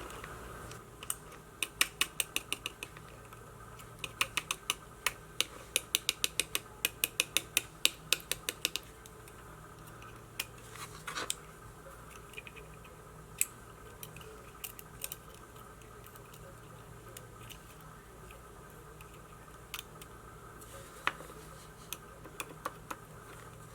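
Light, sharp clicks of small tools and parts being handled while a DJI Osmo Action camera is put back together: first in quick, even runs of about three to four a second, then only now and then. A steady low hum runs underneath.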